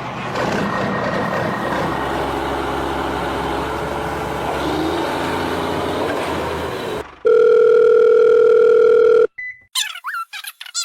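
A small motor or engine running steadily for about seven seconds. It gives way to a loud, steady electronic tone held for about two seconds that stops abruptly. A few short chirping blips follow near the end.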